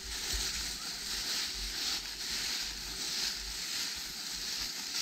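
Footsteps rustling and crunching through dry fallen leaves in a steady rustle that swells and fades with the steps, with low wind rumble on the microphone.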